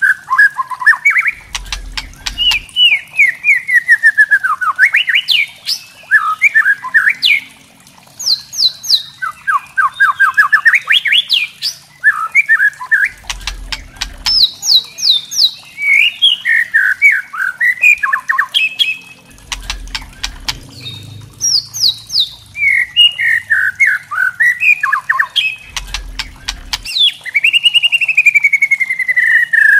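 White-rumped shama chattering its 'kretekan' call: fast rattling runs of sharp notes, crackling clicks and short whistled phrases that glide up and down. A low thump comes about every six seconds.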